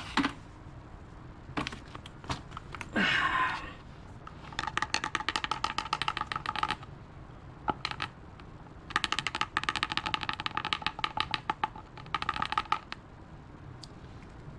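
Two runs of rapid, even mechanical clicking, the first about two seconds long and the second about four, preceded by a short falling squeak.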